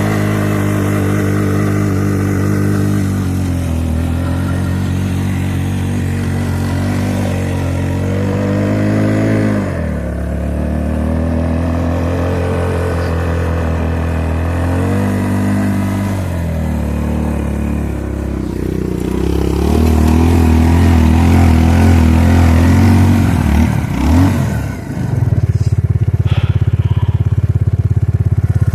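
Suzuki King Quad ATV engine revving up and falling back again and again under heavy load as the quad strains to get unstuck in deep snow. It gets louder for the last third, with a brief drop and sweep in pitch a few seconds before the end.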